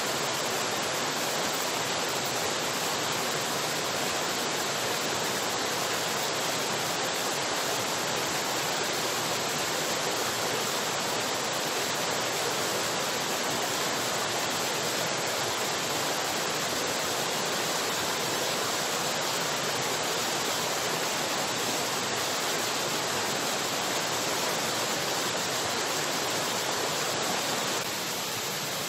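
Steady rushing water, like a stream or small waterfall, with no breaks, dropping slightly in level near the end.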